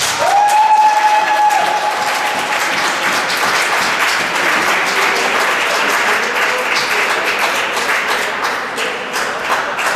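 Audience applauding after the program ends, a dense patter of clapping, with one high held cheer from a spectator rising in pitch at the start. The applause eases a little near the end.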